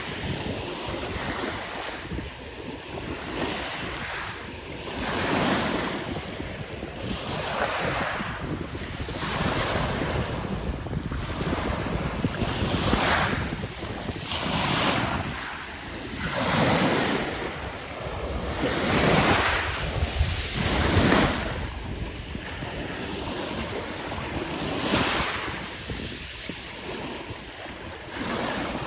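Small whitecapped sea waves breaking and washing over a fine-pebble beach, one surge of surf every two seconds or so, each swelling and falling away.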